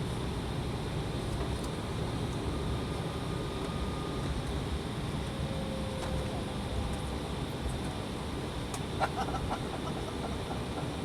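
Steady cabin noise inside an Embraer ERJ-175LR airliner, its General Electric CF34-8E turbofans running at low thrust with a low rumble throughout, and a few faint rattles about nine seconds in.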